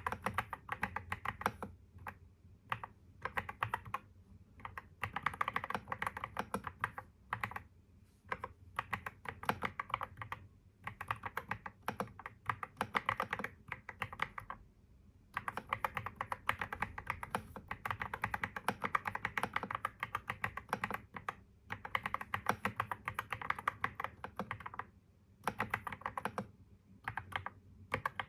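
Typing on a computer keyboard: fast runs of key clicks broken every few seconds by short pauses.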